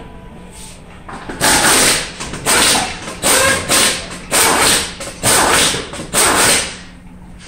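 Pneumatic impact wrench hammering lug nuts on a truck wheel, in about seven short, loud bursts.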